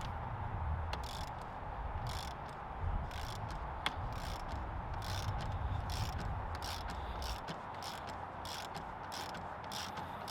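Ratchet wrench clicking in short irregular runs, a few clicks a second, while a bolt on a Rock Shox Boxer fork is worked loose.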